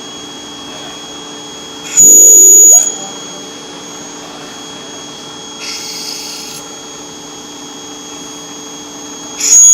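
A machine humming steadily, broken by a very loud, piercing high-pitched shriek about two seconds in that lasts under a second, and again near the end.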